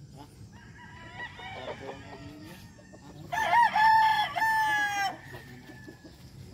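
Gamecock crowing loudly, one long crow of nearly two seconds starting about three seconds in, wavering at first and then held. Fainter rooster crowing comes before it.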